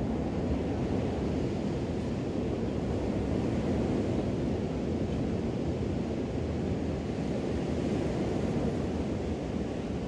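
Small ocean waves washing onto a sandy beach in a steady rush, with wind on the microphone adding a low rumble.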